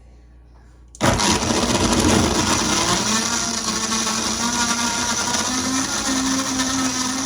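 Vitamix blender switching on about a second in and running hard, crushing ice cubes in a thick mix of milk and frozen orange-juice concentrate. Its motor tone rises in steps as it runs.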